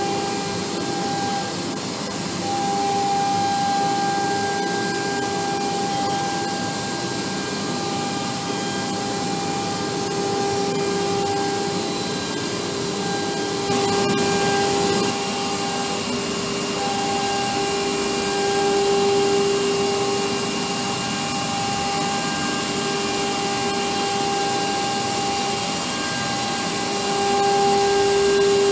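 CNC panel router milling film-faced plywood: the spindle's steady whine over the rushing hiss of the cutter and its dust extraction, the whine swelling and fading as the cutter moves through the sheet. About halfway through there is a brief louder jump.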